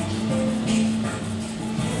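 Instrumental music with held low notes and no singing.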